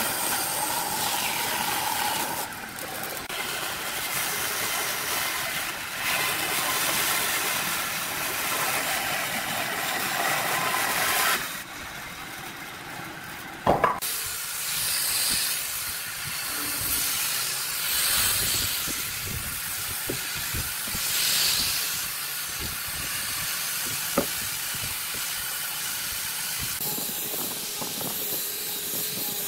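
A bandsaw cutting through a wooden board, then after a short quieter gap and a sharp click, an angle grinder with a sanding disc sanding the curved edge of a wooden piece, its noise swelling and easing as the disc is worked along the wood.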